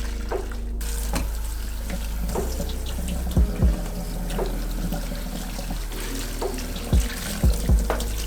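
Water running from a tap into a sink, turned on just under a second in and then running steadily.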